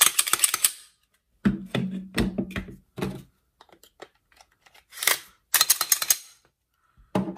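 Clicks, knocks and sliding scrapes of a striker-fired pistol being reassembled: a slide is run back onto its polymer frame and locked into place. The sounds come in short clusters with brief pauses between.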